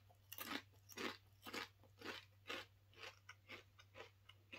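Mouth chewing a Doritos Bold BBQ tortilla chip, with faint, regular crunches about twice a second.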